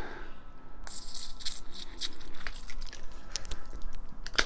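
A house key puncturing the side of an aluminium beer can, with small clicks and crinkles of the thin metal and a hiss that sets in about a second in as the carbonated beer starts to escape through the hole. A sharp click near the end.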